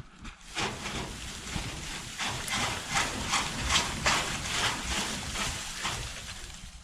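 Snow and ice falling off the branches of a snow-laden tree as it is shaken loose: a dense rustle with many quick crackles, loudest in the middle and thinning out near the end.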